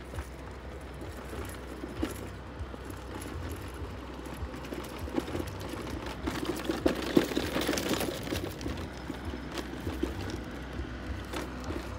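Small electric mobility scooter running along stone paving: a steady low motor hum with irregular clicks and knocks from the rolling, louder for a couple of seconds near the middle.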